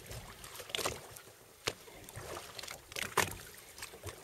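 Sea water slapping and splashing against the hull of a drifting boat in irregular bursts, with a single sharp knock a little under two seconds in.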